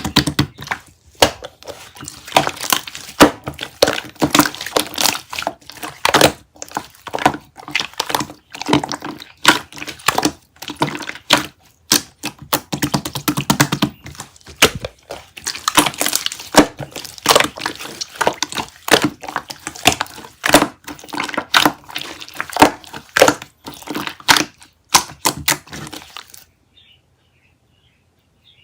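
Rapid, irregular clicking and crackling, dense and loud, that cuts off suddenly near the end.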